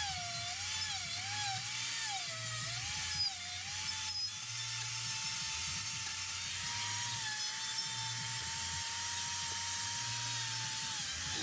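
Die grinder spinning a half-inch Saburrtooth carbide flame bit, cutting and shaping wood with a high whine over a rasping hiss. Its pitch sags and recovers repeatedly in the first few seconds, then holds steady.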